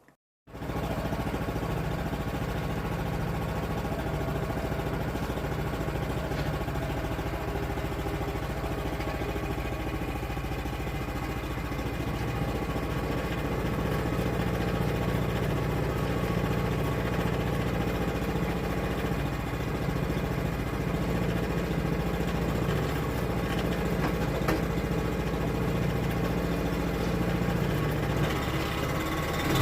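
Portable sawmill's engine running steadily as the mill cuts through an oak log, growing a little louder from about halfway.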